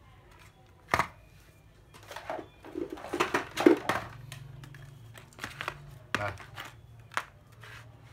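Plastic power-tool battery chargers being handled and set down on a cardboard-covered table. A sharp click comes about a second in, then a cluster of knocks and rustling in the middle, then scattered clicks.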